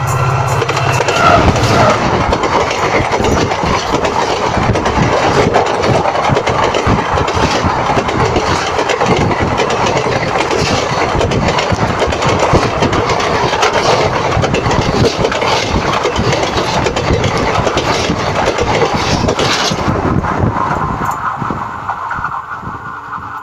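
A passenger train, a WDP-4 diesel locomotive and its coaches, rolling directly over a camera set between the rails. A dense, loud rumble and clatter of wheels on the rails starts suddenly about a second in and falls away near the end as the last coach clears.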